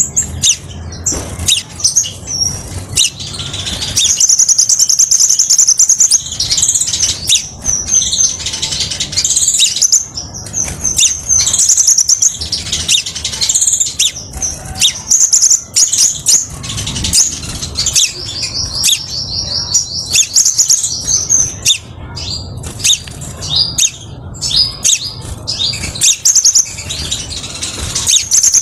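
Crimson sunbird (sepah raja) singing: a clear run of high-pitched sharp chirps, broken by two long, very rapid trills, one a few seconds in and another past the middle.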